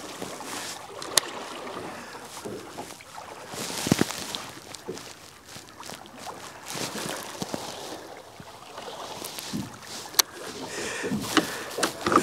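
Water slapping and lapping against a small boat's hull, an uneven wash that swells and fades, with a few sharp clicks and a louder knock about four seconds in.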